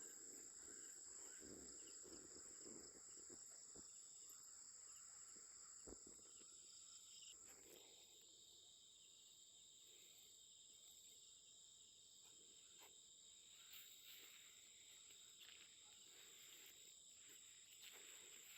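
Faint, steady high-pitched chorus of night insects such as crickets, with a second, lower steady trill joining about seven seconds in and a few faint scattered knocks.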